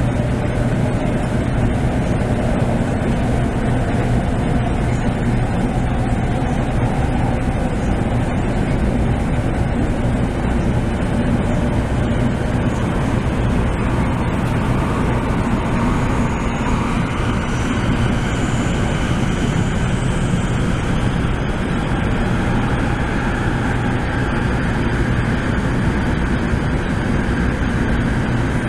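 Taiwan High Speed Rail 700T trainset heard from inside a passenger car while running at speed through a tunnel: a loud, steady rumble of wheels and running gear, with a faint whine that drifts in pitch above it.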